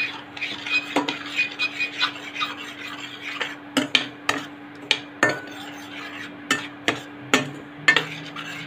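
Steel spoon scraping and clinking against a pan while stirring semolina as it dry-roasts on low flame. Irregular scrapes and clicks, one to three a second.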